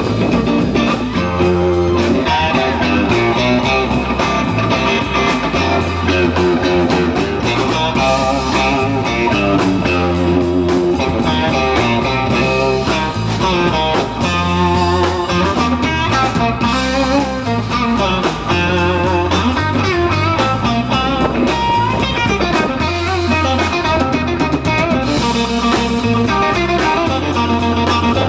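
Live blues band playing a funky instrumental, with electric guitar lead lines over a repeating bass riff and drums.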